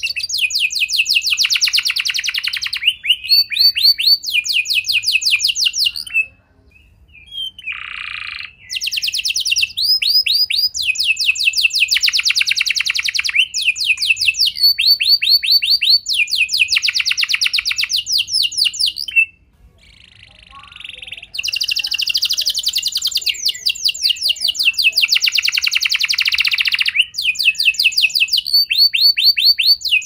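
Domestic canary singing a long song of rapid trills: each phrase is a fast run of the same note repeated many times, the next phrase switching to another pitch, with two brief pauses about 6 and 19 seconds in.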